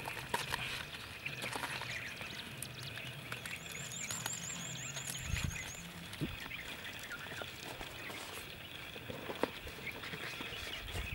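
Banana leaves crinkling and rustling under the hands as a leaf parcel is folded and tied, small dry crackles throughout. A high warbling trill runs from about three and a half to six seconds in.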